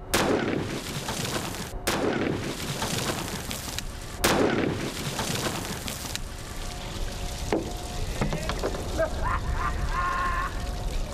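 A bomb-disposal robot's high-pressure water disruptor fires into an ice cooler: a sharp blast followed by a long rush of blown-apart water and debris, heard three times about two seconds apart as the shot is replayed.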